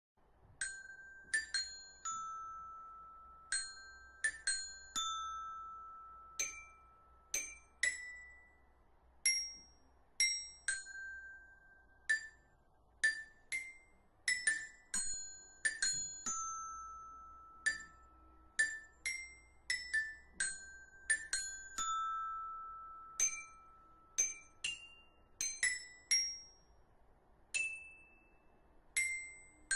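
A slow, high melody of single struck notes on a mallet-percussion instrument, each note ringing and fading before the next, with no singing.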